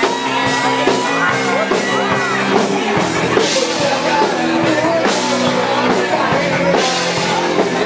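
Live rock band playing loudly, with full sustained chords over drums and cymbal crashes every couple of seconds.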